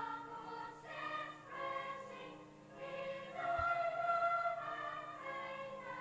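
A choir singing a slow hymn in long held notes, the chords changing about once a second.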